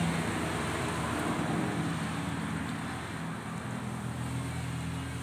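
A steady low engine hum under a rushing background noise, easing off slightly near the end.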